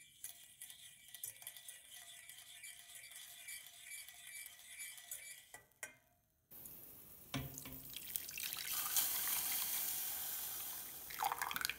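Vegan butter melting and sizzling faintly in a stainless steel saucepan while a wire whisk stirs it, with light ticks of the whisk against the pan. After a short break, oat milk is poured into the hot pan, making a louder rushing liquid sound for a few seconds.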